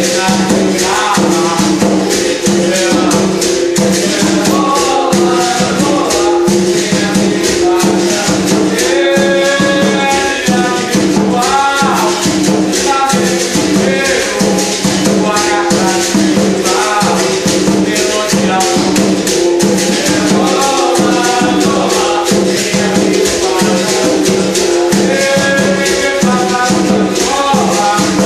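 Capoeira Angola music: a berimbau struck in a steady rhythm with the caxixi basket rattle shaking, over an atabaque hand drum, with voices singing in phrases that come and go.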